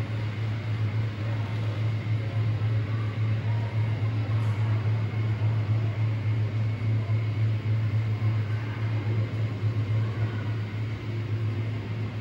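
H0-scale model train running along the layout track: a steady low hum with a rolling rush over it.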